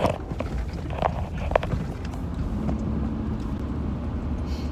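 Truck driving on a dirt road: a steady low engine and road rumble, with a few sharp knocks and rattles in the first second and a half.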